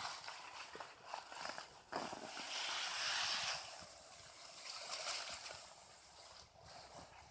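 Rustling, crumbling and scraping of loose soil and potato plant foliage as potatoes are dug out of a raised bed, with a louder stretch of rough scraping about two to three and a half seconds in.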